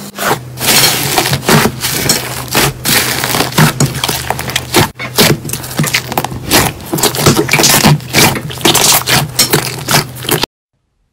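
Hands squeezing and kneading a thick mass of pink slime, with rapid irregular crackles and pops as air pockets burst and the slime squelches. The sound cuts off abruptly near the end.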